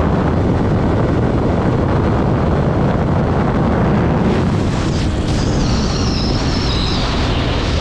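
Heavy wind rushing over the microphone of a motorcycle riding at speed, with the engine running underneath. From about halfway through, a thin high tone slides slowly downward.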